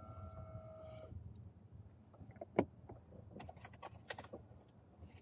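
A steady electronic beep that cuts off about a second in, then scattered clicks and taps of a camera being handled, the loudest a single sharp click in the middle, over a low hum.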